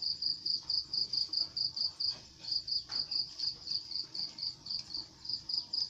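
A cricket chirping in a steady run of short, high-pitched chirps, about four a second, with brief breaks a little over two seconds in and again near the end.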